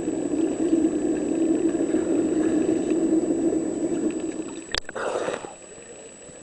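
A steady low hum heard underwater. About five seconds in, a sharp click and a brief splash of water, after which it is much quieter.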